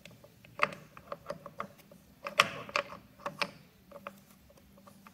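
Monarch 10EE lathe apron half nuts being fitted by hand into their guide: a string of irregular metal clicks and clinks, the loudest about two and a half seconds in.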